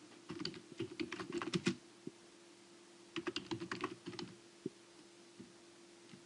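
Computer keyboard typing: two short runs of keystrokes, each about a second and a half long, then a few single clicks, over a faint steady hum.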